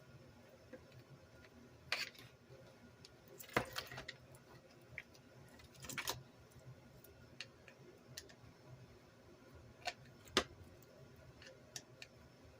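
Scattered sharp clicks and light taps of small hard parts and hand tools being handled during bench work on an RC car, with a few grouped together and the loudest pair near the end.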